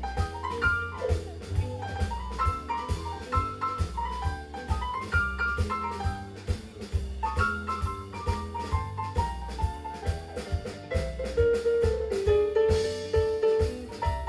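Live band playing an instrumental passage: a drum kit keeps a steady beat under a Yamaha MOXF keyboard and electric guitar, with quick runs of melody notes and a held note near the end.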